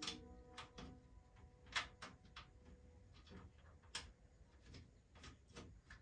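Faint, irregular clicks and light taps, about a dozen in a few seconds, with one sharper click a little under two seconds in.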